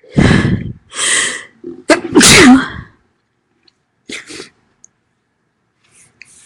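A woman sneezing loudly, three forceful sneezes in quick succession with the last the loudest, followed by a fainter short double sound about four seconds in.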